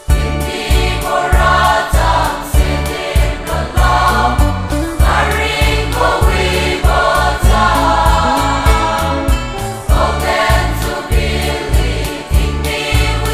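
A large choir singing a gospel song together, with a steady low beat of instrumental accompaniment underneath.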